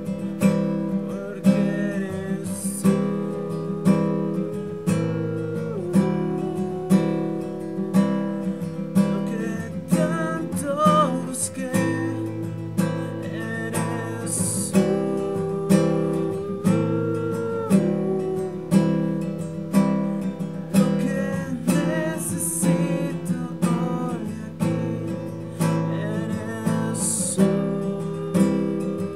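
Music: strummed acoustic guitar with a melody over it and a steady beat of about one accent a second.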